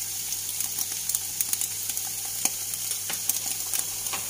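Eggs and termite mushrooms frying in lard in a pan: a steady sizzle with scattered crackling pops.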